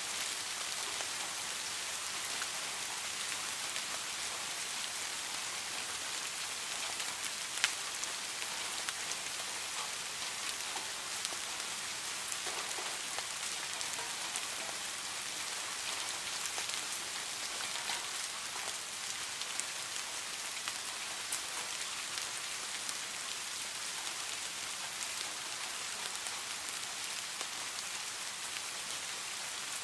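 Steady rain falling: a continuous even hiss dotted with small drop ticks, with one sharper drip sound about seven and a half seconds in.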